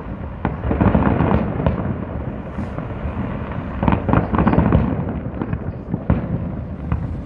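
Aerial fireworks shells bursting in quick succession: sharp bangs over a continuous low rumble, with dense clusters of bangs about a second in and again around four seconds.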